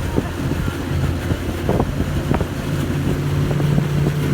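Tour boat's motor running steadily under way, its low hum growing a little stronger in the second half, with wind noise on the microphone.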